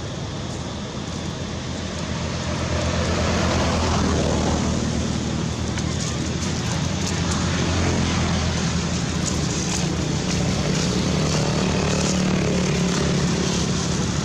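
Low, steady rumble of a motor vehicle engine running, growing louder about two seconds in and holding there.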